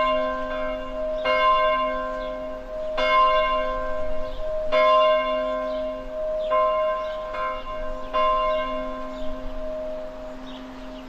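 A large bell tolling, struck about every one and a half to two seconds, each stroke left to ring over a steady low hum.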